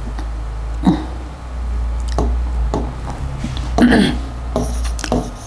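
Stylus taps and knocks on an interactive touchscreen whiteboard as pen options are picked from its menu, a handful of short sharp sounds over a steady low hum. About four seconds in there is a brief throat noise.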